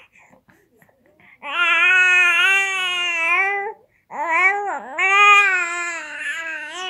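Young baby cooing: two long, drawn-out vowel sounds after a short quiet start, the second dipping in pitch before levelling off.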